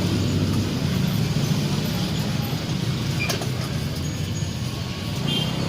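A motor engine running steadily with a low drone, and a single sharp click about three seconds in.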